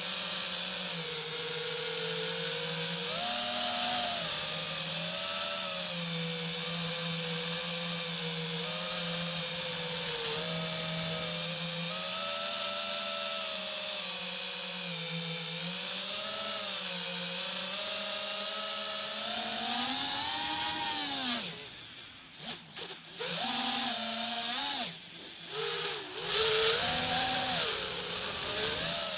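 FPV quadcopter's electric motors whining, the pitch wandering up and down with the throttle. About three-quarters of the way through the whine rises, then cuts out and comes back in short bursts of throttle.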